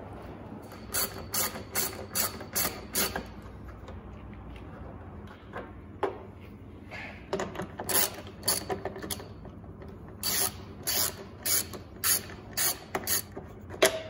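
Socket ratchet with a 10 mm socket and extension clicking in three quick runs of about four clicks a second as the handle is swung back and forth, backing out the bolts that hold the radiator support cover.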